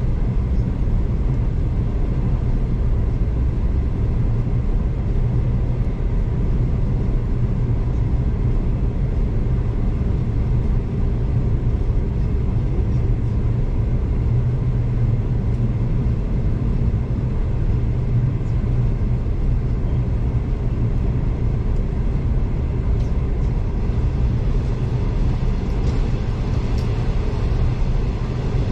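Passenger train running at a steady speed, heard from inside the carriage: a constant low rumble of wheels and running gear on the rails.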